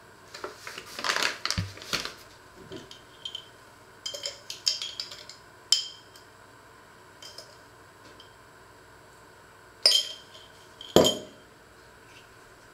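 Kitchen handling sounds: flour rustling as it is poured from a paper bag into a stainless-steel bowl, then a spoon clinking against a small glass jar with short high rings. Two louder sharp knocks come near the end.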